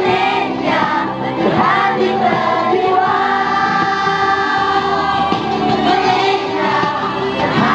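Music with several voices singing together, holding long notes in the middle.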